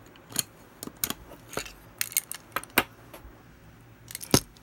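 Irregular sharp metal clicks and clinks as a spring and small parts are worked loose inside the head of a pop rivet gun, with the loudest click near the end.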